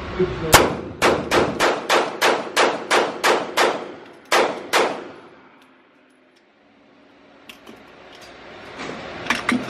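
Rapid fire from a Taurus semi-automatic pistol in an indoor range: about a dozen sharp shots, roughly three a second, with a short pause before the last two. Each shot rings off the hard walls.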